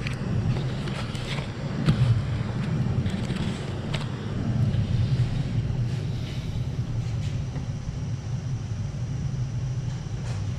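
Steady low rumbling hum, with a few light clicks and knocks as vegetables and utensils are handled on a counter.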